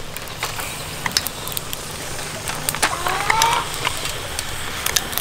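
Snails stuffed with chili and garlic sizzling in their shells on a wire grill over a charcoal fire: a steady hiss with frequent sharp pops and crackles.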